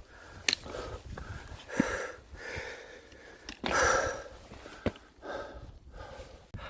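A person breathing hard through the mouth while climbing uphill: heavy, rushing breaths every second or so, the loudest a little past halfway. A few sharp clicks fall between the breaths.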